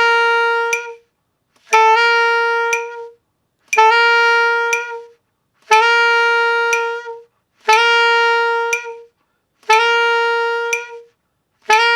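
Alto saxophone playing slow, separate grace-note figures, one about every two seconds: a brief tongued F sharp slurred up a half step into a held G, each about a second long. These are grace notes practised slowly on the beat.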